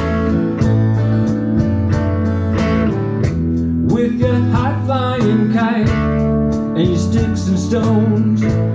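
Live band music: electric guitar over a bass line and a steady beat, with a man singing partway through.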